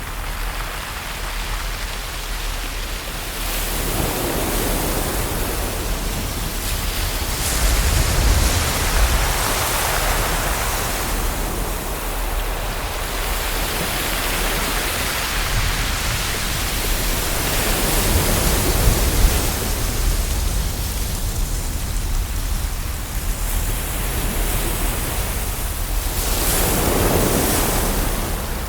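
Ocean waves: a steady rush of surf that swells and falls back every few seconds, with several larger surges.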